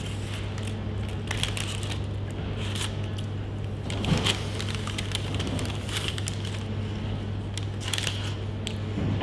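A person eating dirty fries: soft chewing with crackles and clicks from handling the food, over a steady low hum. A louder bump comes about four seconds in.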